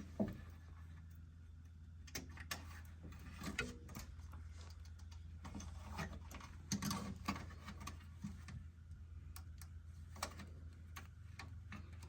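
Scattered small clicks and ticks of plastic cable ties being threaded and tightened around wiring, over a steady low hum.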